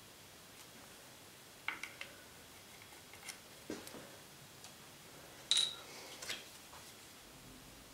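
Light, scattered clicks and taps as a magnetic knife strip is handled and pressed against a wall, the loudest a short metallic clink with a brief ring a little past halfway.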